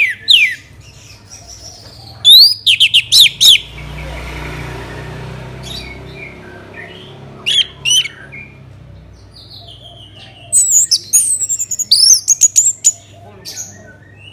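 Orange-headed thrush singing: spells of loud, rapid whistled notes, many sweeping sharply downward, about two, eight and eleven seconds in, with quieter notes between.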